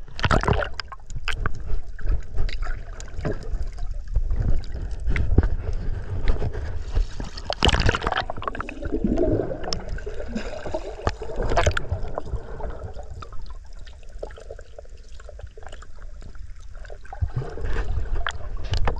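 Seawater sloshing and gurgling around a camera at the surface and underwater, with irregular clicks and a few louder splashes.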